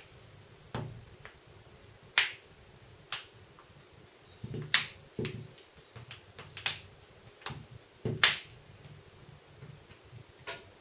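Plastic back cover of a Samsung Galaxy Note 2 snapping into place: about a dozen sharp clicks at irregular intervals as its clips catch one by one while fingers press around the edges.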